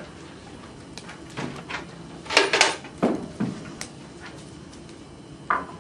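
Scattered knocks and clatter of things being handled and set down on a lectern, the loudest burst of clatter about two and a half seconds in, with a last knock near the end.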